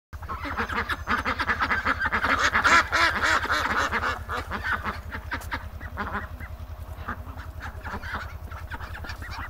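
Ducks calling: a rapid run of short quacking calls, busiest in the first few seconds and thinning out later, over a steady low hum.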